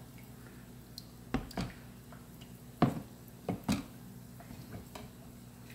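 About five short knocks and clicks, some in quick pairs, as an aluminium part on a wire hanger is moved about in a plastic bin of caustic soda solution, over a faint steady low hum.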